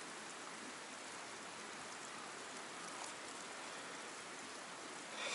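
Steady, even hiss of flowing stream water.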